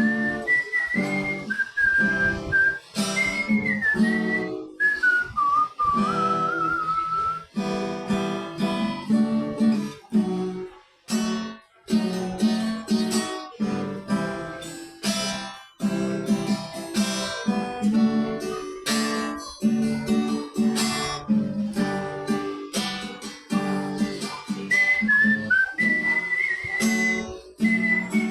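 Acoustic guitar strummed in a steady rhythm of chords. A whistled melody rides over it for the first several seconds and comes back near the end.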